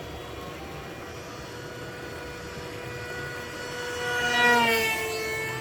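RC model Su-37 jet whining steadily in flight, growing louder to a peak about four and a half seconds in as it makes a low, close pass, its pitch dropping as it goes by.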